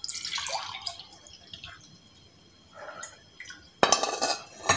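Fresh lemon juice poured from a steel bowl into a glass: a trickling pour that fades out over the first second and a half, then a louder gush of liquid near the end.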